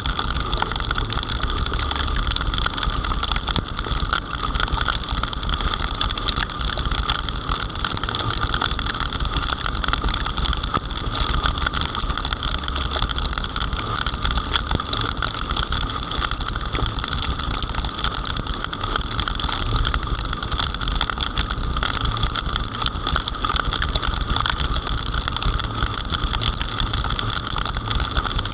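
A car driving on wet roads in heavy rain: steady rain noise and tyre hiss over a low engine rumble, with faint patter of drops.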